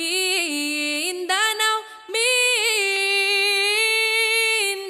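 Unaccompanied singing voice on the soundtrack, singing the word "Mindanao" and then holding one long note for about two and a half seconds.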